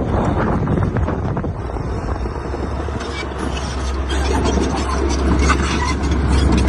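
Heavy diesel earthmoving machinery running steadily with a low drone, joined about halfway through by repeated metallic clanks and rattles.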